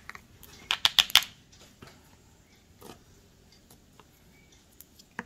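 Handling noise from yarn and a tape-covered cardboard strip: a quick cluster of sharp clicks and rustles about a second in, then a few faint scattered taps.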